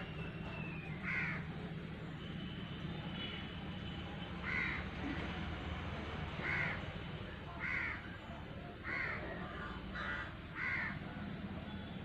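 A bird calling repeatedly, about seven short calls spaced one to two seconds apart, over a steady low hum.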